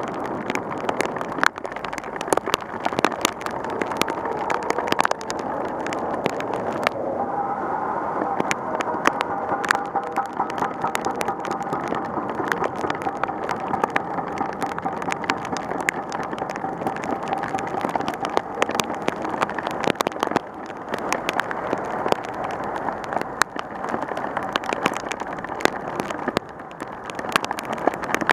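Heavy rain striking a bicycle-mounted camera: a dense, irregular patter of sharp drop clicks over a steady hiss of downpour and tyre spray on a flooded road, with passing traffic. A faint steady hum joins about seven seconds in.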